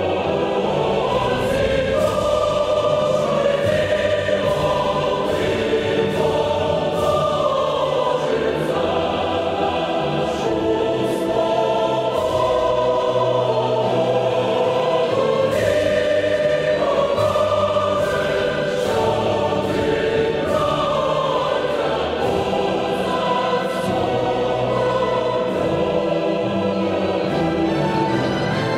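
A choir singing with instrumental accompaniment, long held notes moving from chord to chord.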